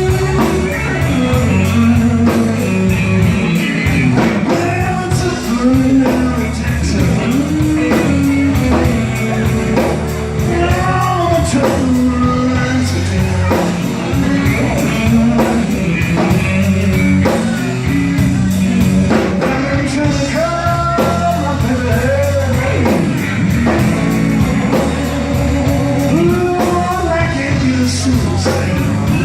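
A live blues-rock trio playing a slow blues: electric guitar, bass guitar and drums, with singing and bending guitar notes.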